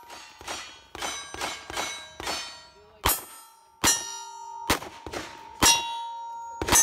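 A string of about a dozen gunshots at steel plate targets, each hit ringing with a metallic clang. The shots come quickly at first, about two a second, then more spaced out, and the plates' ringing tones hang on between the later shots.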